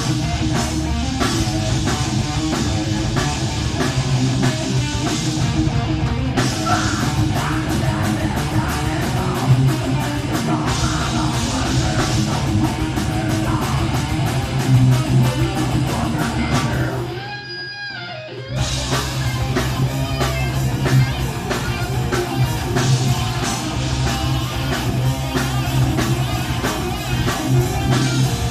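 Live heavy metal band playing through a loud PA: distorted electric guitars, bass and a pounding drum kit, captured on a phone microphone. About two-thirds of the way through, the band cuts out for a moment, leaving a thin ringing note, then crashes back in.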